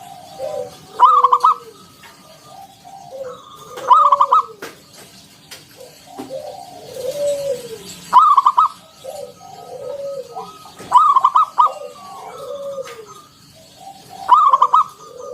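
Zebra doves cooing: repeated phrases of soft, falling coos, broken about every three seconds by a louder, rolling, higher-pitched note, five times in all.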